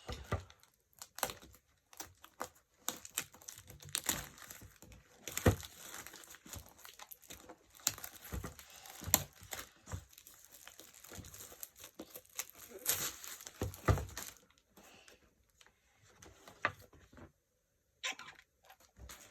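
Toy packaging being crinkled and torn open by hand, in busy bursts of rustling with sharp crackles and clicks, thinning out to a few scattered sounds after about fourteen seconds.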